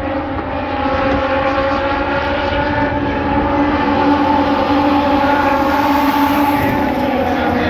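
Several midget race cars' engines running hard around the oval, blending into a steady, loud drone whose pitch drifts slightly. It grows louder about a second in.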